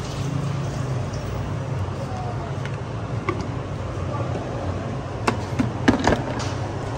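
Roadside street-stall ambience: a steady low hum with traffic noise and background voices. Near the end come a few sharp knocks as the plastic blender jar is handled on the stone counter.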